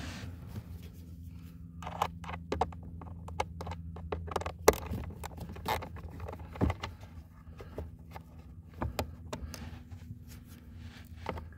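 Quarter-inch ratchet with a T20 Torx socket backing out the blower motor's mounting screws: irregular metallic clicks and clatter, the loudest a little under five seconds in, over a steady low hum.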